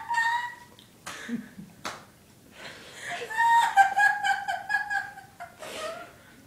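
A woman laughing in high-pitched giggles: a short laugh at the start and a longer run of giggling from about three seconds in.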